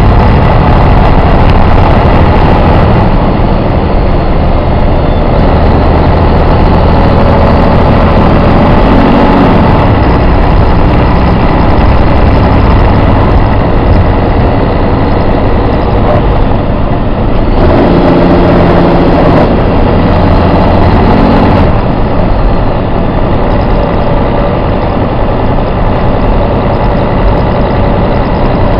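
Detroit Diesel Series 60 12.7-litre diesel engine of a coach running loud and steady under way, through an Allison B500 automatic transmission. Its note shifts about nine seconds in and again from about seventeen to twenty-two seconds in.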